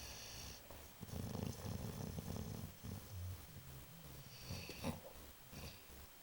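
Great Dane snoring in its sleep: a run of low snoring breaths, two of them carrying a thin high whistle.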